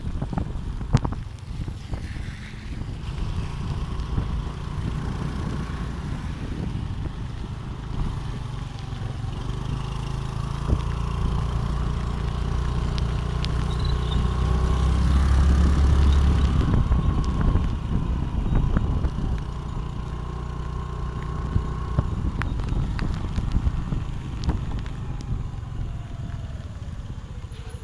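Engine and road noise of a moving vehicle, heard from on board with the ride going on throughout; the rumble builds to its loudest about halfway through, then eases off.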